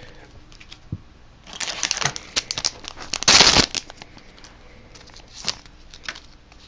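Foil trading-card booster pack crinkling as it is handled, then torn open with one loud rip lasting about half a second, a little over three seconds in, followed by a few light clicks of cards being handled.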